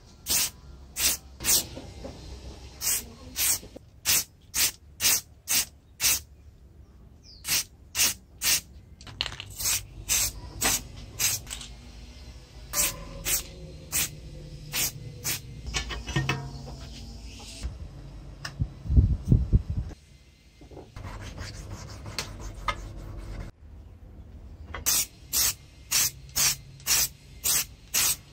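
Aerosol spray-paint can spraying in many short hissing bursts, about two a second, in runs with pauses between them. A louder low rumble comes about two-thirds of the way in.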